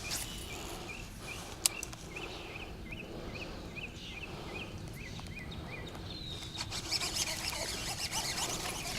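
Outdoor animal chirping: a run of short, rising, high chirps at about three a second, followed near the end by a busier scatter of higher chirps. There is one sharp click about a second and a half in.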